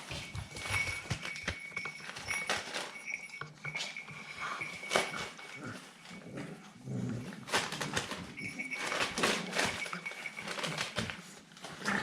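Staffordshire bull terrier puppies making small dog noises amid many short scuffling clicks and knocks.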